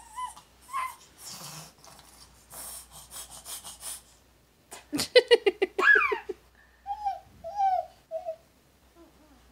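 Young child's giggling and breathy laughter, building to a loud burst of rapid high-pitched laughter with a falling squeal about five seconds in, then short babbling calls.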